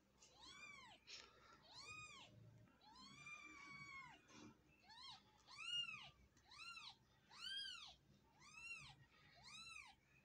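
Newborn kittens mewing: about nine short, high calls that each rise and fall, with one longer, drawn-out mew about three seconds in.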